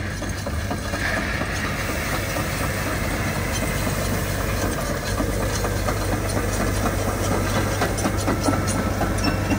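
Cabless Develon Concept X2 crawler dozer running steadily as it pushes gravel with its blade, with a scatter of small clicks and crunches from its tracks and the stones.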